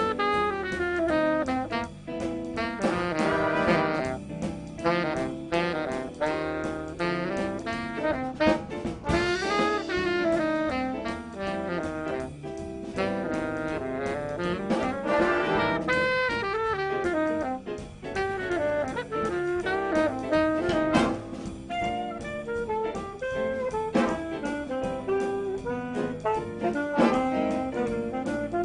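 A student jazz band playing a holiday tune, with saxophones and brass carrying the melody over a drum kit.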